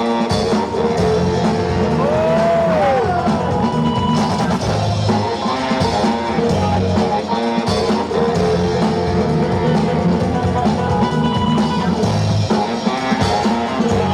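Loud rock-style music with drums and guitar playing without a break, with a few sliding, bent notes early on.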